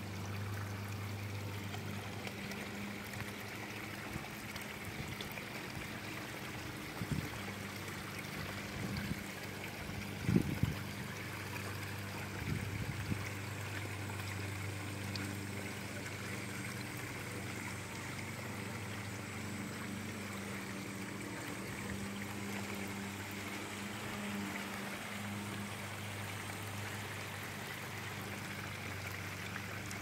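Small backyard pond waterfall running: water trickling and splashing steadily from a plastic cascade tray and a waterfall lip into the pools below, with a low steady hum underneath. A few dull thumps come about seven to thirteen seconds in, the loudest about ten seconds in.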